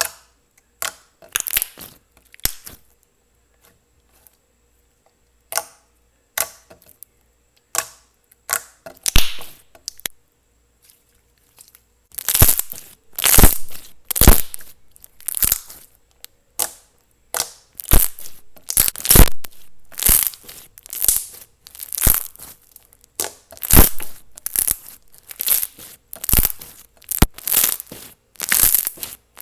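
Clear slime being pressed, poked and stretched by hand, giving sharp pops and crackles: a few scattered ones at first, then one or two a second from about twelve seconds in.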